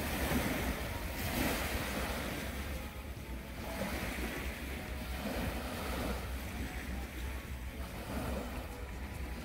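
Small waves washing onto a sandy shore, each wash swelling and fading every couple of seconds, over a low wind rumble on the microphone.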